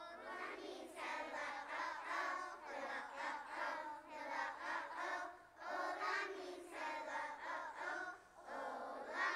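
A group of young preschool children singing together, voices starting abruptly and carrying on with only short breaths between phrases.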